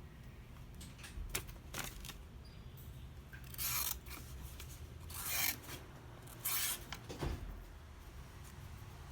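Small steel knife blade worked in three short scraping strokes, each about half a second long, with two light clicks before them and a single knock after.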